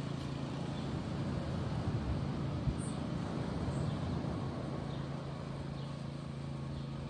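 Ocean surf washing ashore: a steady rush that swells a couple of seconds in and then eases off, with a low steady hum beneath it.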